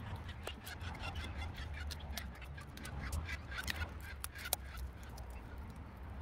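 Crinkling and sharp clicks of clear plastic tape and string being handled while binding a graft joint on a durian trunk, over a low steady rumble.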